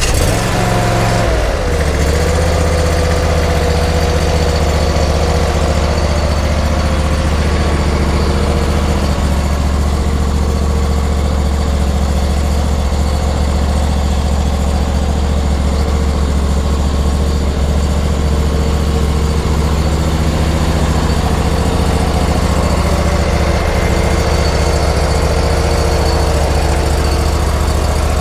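Husqvarna P-ZT 48 zero-turn mower engine just started, its speed dropping and settling in the first two seconds, then running steadily.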